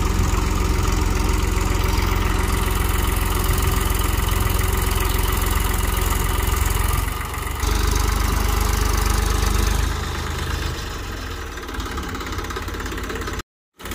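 Diesel engines of Massey Ferguson tractors running with a steady low rumble. The sound shifts abruptly a couple of times and drops out briefly near the end.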